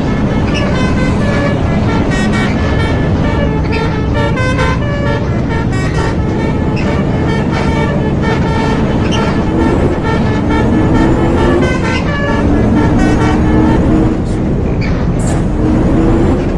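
Telolet Basuri musical air horn playing quick tunes of short toots that jump up and down in pitch, over a steady engine rumble.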